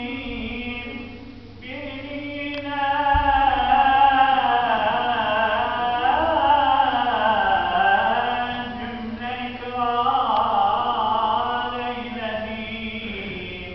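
A man's voice chanting an unaccompanied Islamic religious recitation, with long held notes ornamented by turns and glides in pitch. It comes in three phrases, with short breaks for breath about one and a half seconds in and again about nine and a half seconds in.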